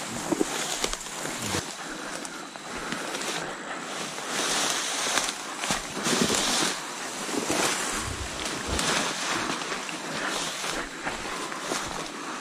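Wind blowing in gusts, a rushing noise that swells and fades, partly buffeting the microphone, with a couple of light taps near the start.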